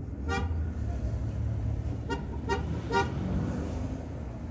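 Four short car horn toots, one near the start and three in quick succession around two to three seconds in, over the steady low rumble of an idling car engine and street traffic.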